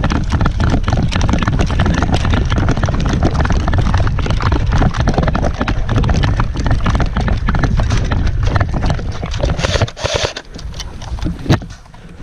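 Running footsteps pounding through brush, with clothing and gear rustling and rubbing against the microphone. It drops away about ten seconds in, with a single sharp knock near the end.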